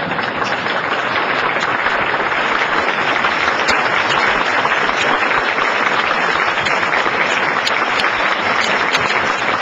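Audience applauding, a dense, steady round of clapping that holds at full strength throughout.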